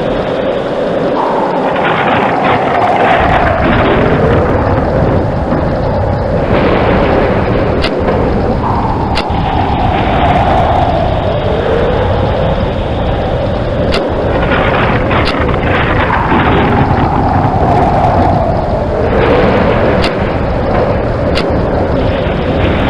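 Steady heavy rain with rolling thunder that swells and falls away about every seven or eight seconds, and several sharp cracks in pairs.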